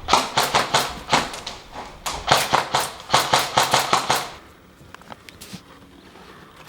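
Airsoft gun firing rapid strings of shots, about six a second, in two runs separated by a short pause, followed by a few scattered quieter shots near the end.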